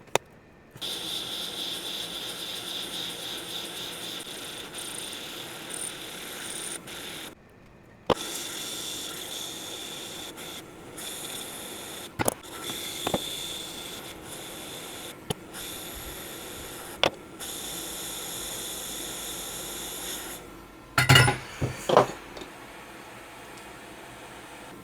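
Hot air rework station blowing a steady airflow hiss with a high whine, switching on and off abruptly, as it heats the logic board. A few sharp clicks and knocks, tools tapping against the bench, cluster near the end.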